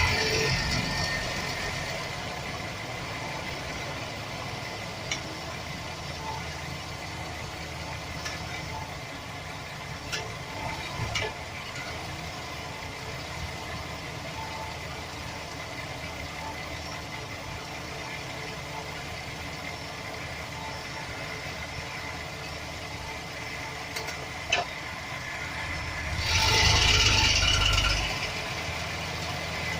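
Chevrolet Express 4.3-litre V6 running at idle with a rattle and scattered clicks, which the owner puts down to a bad starter motor gear bumping against the flexplate. It swells louder for about two seconds near the end.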